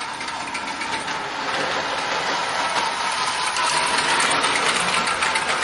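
Lionel O-scale Thomas the Tank Engine toy locomotive running on three-rail tubular track, pulling two coaches. Its electric motor gives a steady whine over the rattle of wheels on the rails, growing a little louder as the train comes near.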